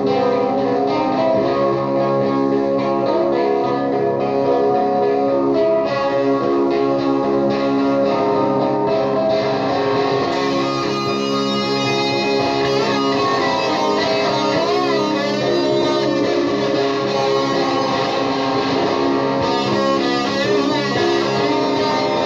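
Electric guitar played through an Orange amplifier in a layered psychedelic noise loop: dense sustained droning notes stacked on one another. About ten seconds in, brighter wavering, warbling tones come in over the drone.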